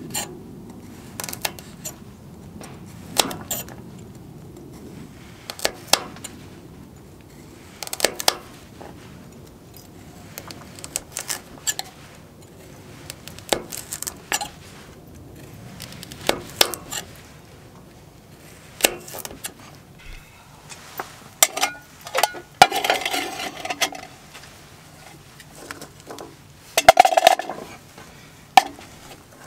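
Kitchen knife chopping through a carrot on an end-grain wooden round, one sharp knock every second or two. Near the end, carrot pieces clatter and clink into a metal canteen cup.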